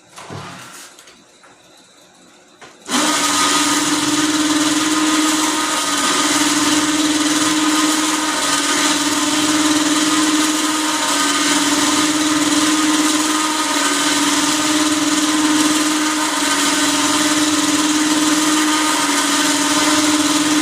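Harbor Freight 3,000 lb remote-control electric winch running steadily, its motor and gearing giving a loud, even whine as it winds the cable back onto the drum. It starts abruptly about three seconds in, after a quieter stretch with a brief handling noise.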